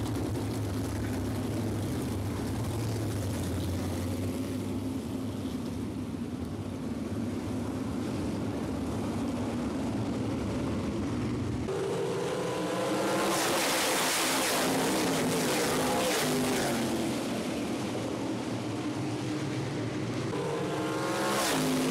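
A pack of 360 sprint cars' V8 engines running together, a steady low drone at first; about halfway through the engines open up and the note climbs and swells as the field takes the green and the cars come past, rising again near the end.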